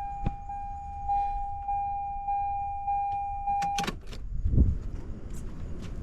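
Toyota MR2 SW20's motorized power antenna running: a steady whine that stops with a few clicks nearly four seconds in, followed by a low thump.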